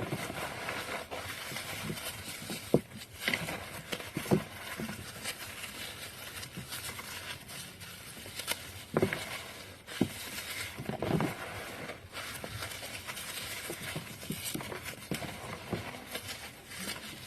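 Dry floral foam being crushed: steady crunchy crackling with sharper snaps now and then, the loudest about three seconds in.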